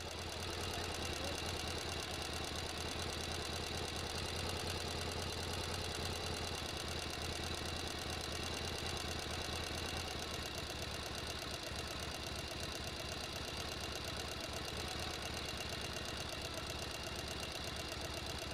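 Boat engine running steadily, a low even hum with no change in speed.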